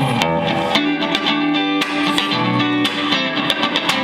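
Guitar music, with plucked and strummed notes.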